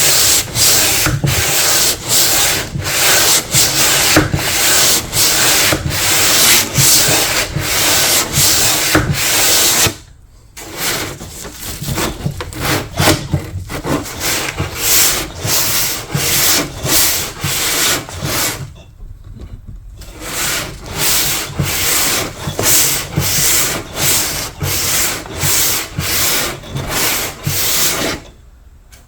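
Sandpaper rubbed back and forth by hand, taking off old paint and finish, in even strokes about twice a second. The strokes pause briefly about ten seconds in and again near two-thirds of the way through, and are softer after the first pause.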